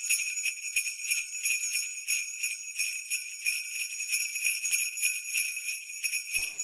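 Sleigh bells (jingle bells) shaken in a quick, even rhythm, a bright high jingling.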